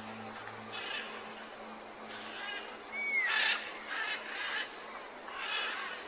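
Tropical rainforest ambience: a steady hiss of insects with scattered bird chirps and calls, including a falling whistle about halfway through. A low music drone fades out in the first second.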